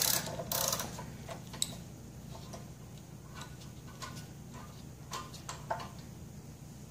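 Light metallic clicks and ticks from a spark plug socket and wrench loosening the spark plug on an old Honda generator engine, a couple of sharper clicks in the first second and then scattered lighter ticks.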